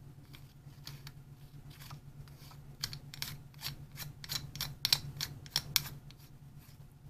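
Light metallic clicks and ticks as a knurled switch cap is screwed onto the threads of a metal box-mod tube. The clicks come irregularly and are busiest from about three to six seconds in.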